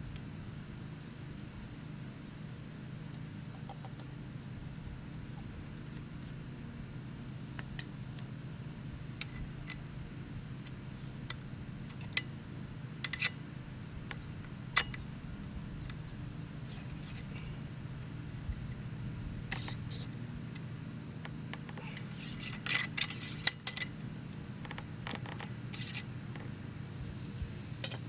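Scattered light clicks and small knocks, a few close together about 23 seconds in, over a steady low hum and a constant high, thin insect drone.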